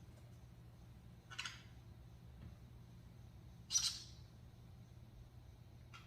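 Pet bird giving two short, harsh squawks a couple of seconds apart, over a faint steady hum.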